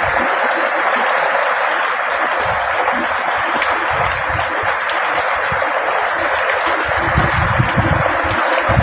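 Heavy tropical rain pouring down in a steady, dense hiss, with strong wind gusting in low rumbles, strongest near the middle and toward the end.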